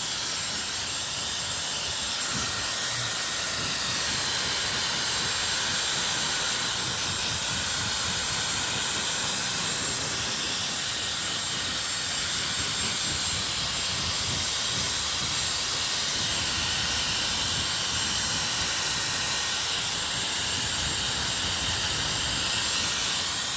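Dyson Supersonic HD03 hair dryer running steadily, a constant rush of air with a faint high whine from its motor.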